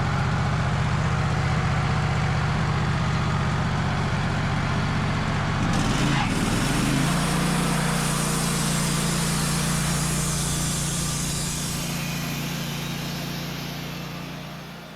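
Wood-Mizer portable bandsaw mill's engine running steadily. Its pitch shifts about six seconds in, and the sound fades out near the end.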